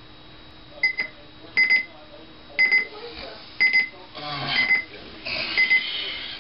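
Digital alarm clock beeping in quick pairs, about once a second, with a high electronic tone. About two-thirds of the way through, bedding rustles as the sleeper stirs and sits up.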